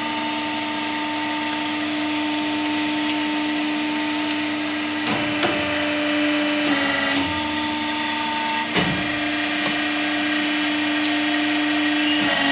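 Plastic injection moulding machine humming steadily, its pitch dipping for a moment about seven seconds in, with a few sharp metal knocks from the press around five, nine and twelve seconds in.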